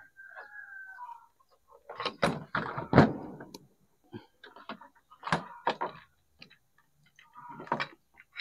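Hand mixer's motor and plastic casing parts being handled and knocked on a workbench during disassembly: a string of knocks and clicks, the loudest about three seconds in.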